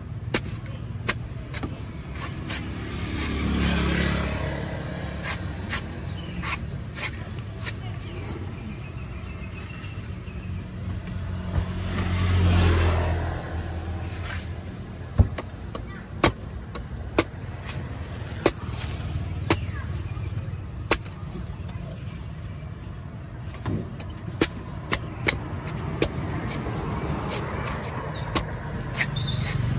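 Cleaver chopping the husk off a young green coconut against a wooden block: sharp, irregular chops throughout. Over a steady rumble of traffic, a vehicle passes twice, about four seconds in and again about twelve seconds in.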